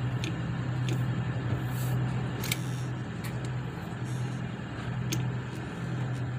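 Motorboat engine running steadily with a low drone, over a wash of water and wind noise, with a few short ticks scattered through.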